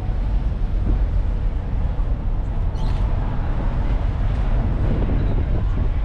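Steady low rumble of a passenger ferry under way, its engines and hull noise carrying without a break.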